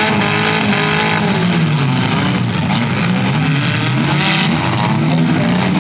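Several compact-car engines revving at once during a demolition derby heat, their pitches rising and falling against each other as the cars accelerate and back off.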